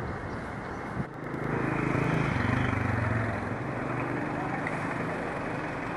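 Street traffic: a motor vehicle's engine passes close by, swelling about a second and a half in and easing off after a couple of seconds, over steady traffic hum. A brief click about a second in.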